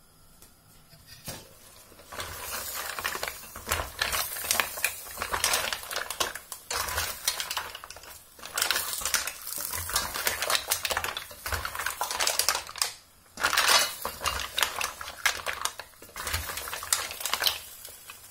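Steamed mussel shells clattering against each other and the stainless steel pan as they are stirred with a wooden stick, in spurts with short pauses. A single knock just over a second in.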